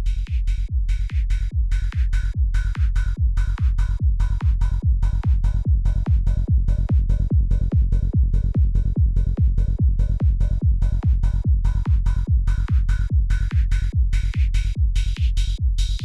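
Psytrance kick and bass pattern playing at a steady driving tempo, with evenly spaced hits. A filtered upper layer sweeps over it and brightens, climbing higher near the end, like a filter-automation sweep.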